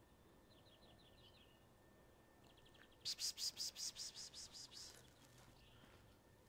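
Small birds chirping in short, quick trills. About three seconds in comes a loud, rapid run of about a dozen hissing pulses that fade over two seconds.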